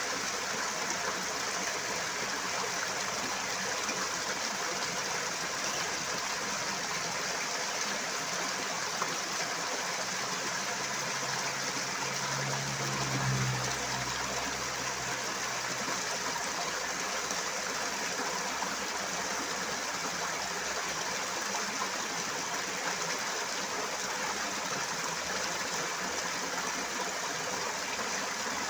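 Loud, steady rushing of flowing water, like a stream or waterfall, unbroken throughout. A brief low hum swells and fades about halfway through.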